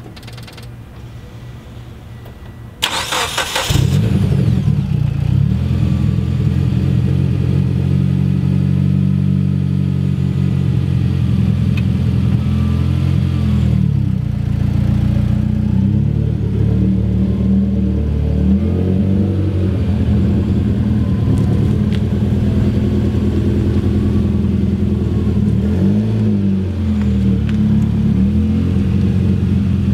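Mitsubishi Lancer Evolution X's turbocharged 2.0-litre four-cylinder, cold and running on E85, cranks briefly and catches about three seconds in. It then runs steadily, with its engine speed rising and falling a few times.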